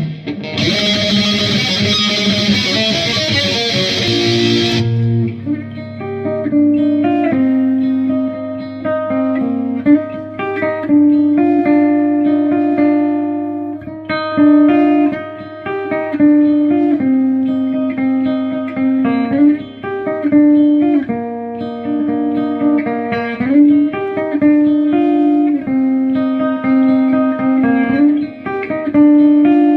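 Dean Cadillac electric guitar played through a BOSS MT-2 Metal Zone distortion pedal into an Orange Super Crush 100 amp. A harsh distorted chord rings for the first few seconds, then gives way to a slower single-note melody with a darker, smoother tone.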